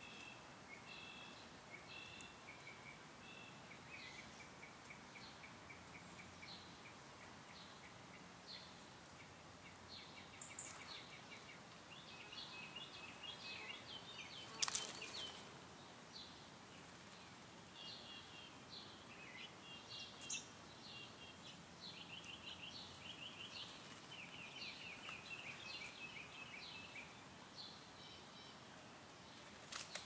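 Faint backyard birdsong: short chirps and quick rapid-fire trills from small songbirds, busiest in the second half. A sharp click sounds about halfway through, and another near the end.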